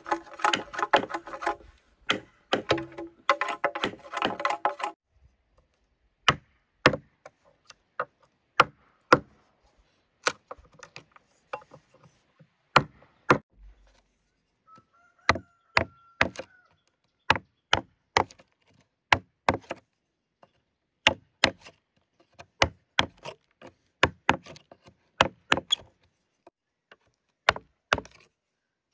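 Music for about the first five seconds, then a long series of sharp chopping strokes into wood, roughly one a second and unevenly spaced.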